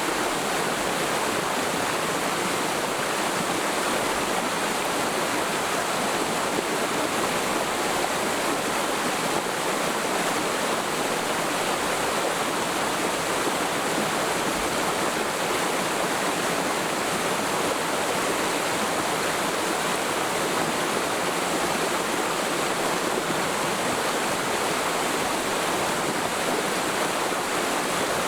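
Mountain stream in a forest valley flowing steadily over rocks: an even rushing and splashing of water that does not change.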